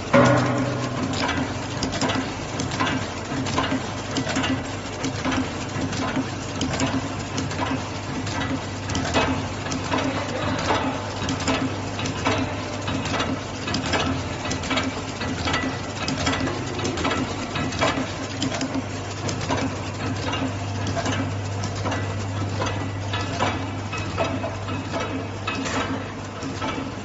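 Automatic envelope sorting machine running: a steady motor hum under a busy, irregular clatter of mechanical clicks, with one louder knock right at the start.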